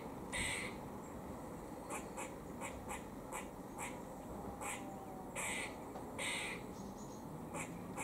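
Grey squirrel giving its warning call: a string of short calls repeated irregularly, one or two a second, with three longer drawn-out ones among them.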